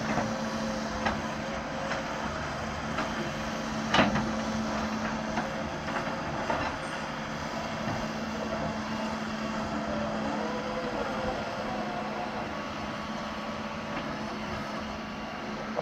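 Doosan DX140 wheeled excavator's diesel engine running steadily with a constant hum while it digs and loads, with a sharp knock about four seconds in and a few lighter clanks.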